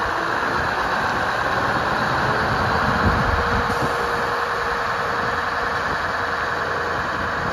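Scania R164's 16-litre V8 diesel running steadily at low revs as the heavy truck and low-loader trailer roll slowly forward on gravel.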